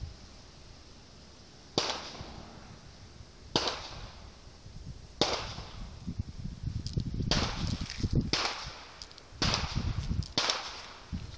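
Slow, uneven footsteps crunching in loose dry sand, about seven steps, each a sharp scuff that fades quickly. The steps come further apart at first and closer together later.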